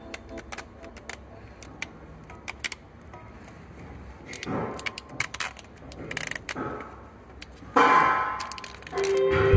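Scattered small metallic clicks and rattles of pliers working on a truck alternator's wiring loom and connector, with a few short rustling swells. A louder sound with a pitched ring comes in near the end.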